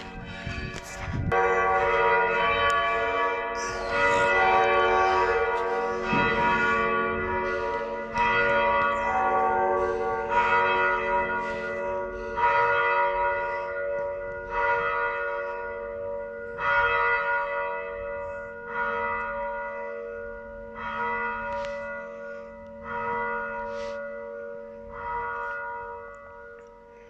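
Church bells ringing in a peal, with a fresh stroke about every two seconds over a lasting hum of overlapping tones. The strokes grow fainter toward the end as the ringing dies down.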